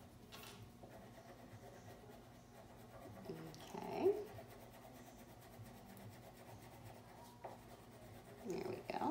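Wax crayon scribbling on paper as a hexagon is coloured in, faint and steady. Two short pitch-bending vocal sounds stand out over it, about four seconds in and again near the end.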